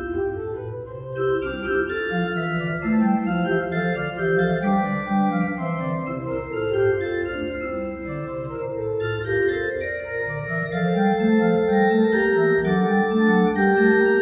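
Church organ playing held chords over a moving bass line, growing louder in the last few seconds.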